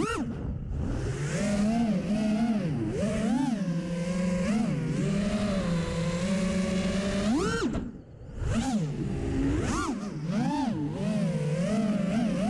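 FPV quadcopter's brushless motors and propellers whining, the pitch constantly rising and falling with the throttle. About eight seconds in there is a sharp rise, then a brief near-cut before the motors spin back up.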